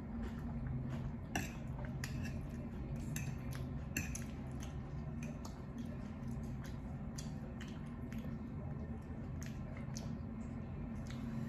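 Metal fork clinking and scraping on a plate between bites, with close-up chewing. A steady low hum runs underneath.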